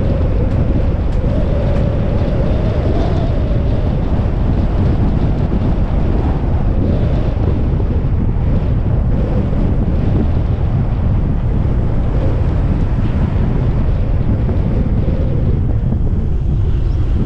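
Wind rumbling on the microphone of a camera on a moving car, steady and loud, with the car's road noise under it.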